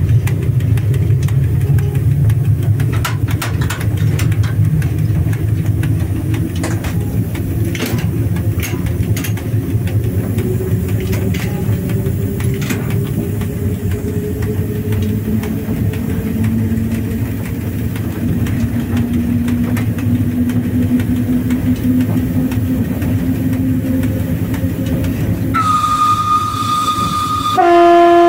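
VL10 electric locomotive heard from the cab as it accelerates: a steady low rumble with scattered clicks, and a whine that slowly rises in pitch as it gathers speed. Near the end a high steady whistle sounds, and then, just before the end, the much louder low horn blows.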